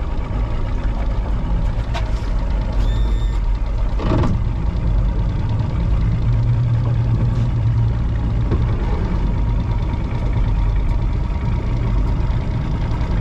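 Mercury Optimax 135 two-stroke outboard running steadily at low speed. A short high electronic beep sounds about three seconds in, and a knock a second later.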